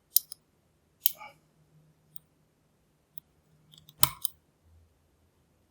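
Sharp metallic clicks and taps from picking a Lockwood padlock, the pick and tension wrench working in the lock. About eight irregular clicks, the loudest three near the start, about a second in and about four seconds in.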